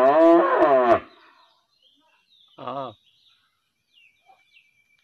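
Cow mooing: a long moo that falls in pitch and ends about a second in, then one short, quieter moo about halfway through.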